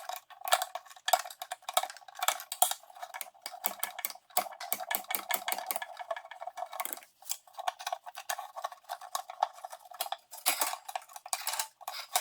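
Hand tools and a metal line fitting clinking, rattling and scraping as the line is split at a T and worked loose: many quick, irregular clicks, with a brief pause about seven seconds in.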